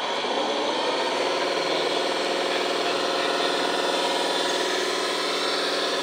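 A 1/14-scale radio-controlled model's sound module playing a steady simulated engine running sound.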